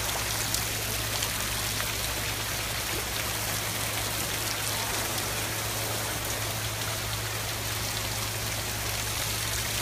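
Steady rain falling onto floodwater: a constant hiss with faint pattering.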